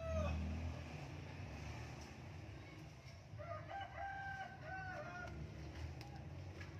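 A rooster crows once, a pitched call of several linked notes lasting about two seconds, starting about three and a half seconds in. A steady low rumble lies underneath.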